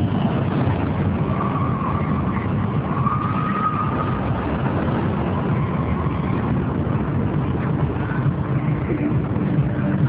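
A spinning amusement ride running, its steady rumbling machinery noise filling the air.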